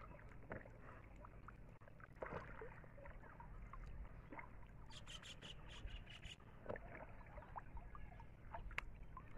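Faint sloshing and trickling of water around a person wading waist-deep, with scattered small splashes and drips, and a brief run of small clicks about five seconds in.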